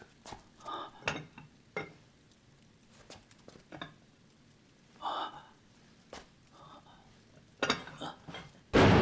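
Ceramic jars and pots handled on wooden shelves while rummaging: scattered light clinks, knocks and scrapes. Near the end a loud rushing noise sets in and slowly fades.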